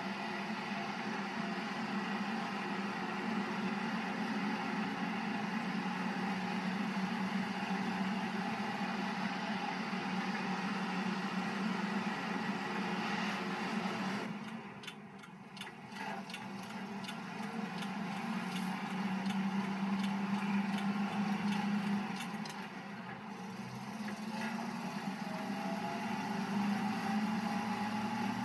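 Toyota Toyoace PK31 truck's engine running while driving, heard from inside the cab, a steady drone with road and cab noise. About halfway through it drops away briefly with a few clicks, then builds again; later it eases off once more and rises in pitch near the end.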